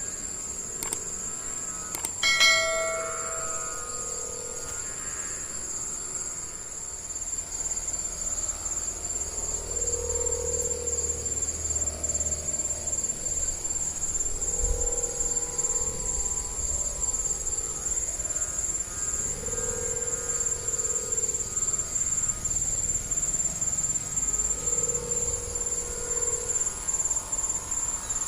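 Hummers on gapangan kites droning in the wind: a low hum that swells and fades about every five seconds, over a steady high-pitched whine. A sharp knock with a brief ringing tone about two seconds in.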